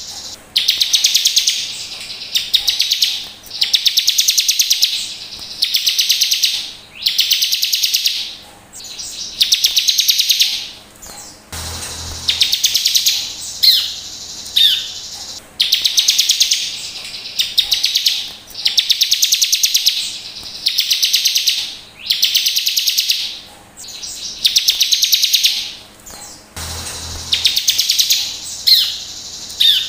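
Bar-winged prinia (ciblek) song: high, buzzy trills about a second long, repeating roughly every two seconds, with short sharp chip notes between them. The same sequence comes round again about every 15 seconds.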